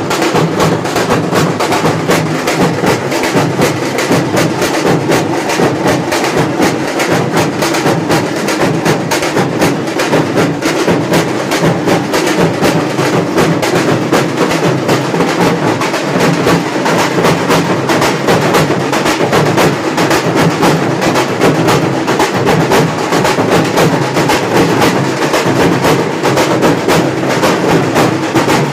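Drums played fast and without a break in a steady, driving rhythm, with sharp, crisp strikes.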